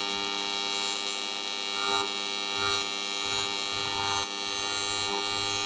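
TIG welding arc buzzing steadily, run along an aluminum plate through spattered bacon grease; the buzz dips briefly about four seconds in.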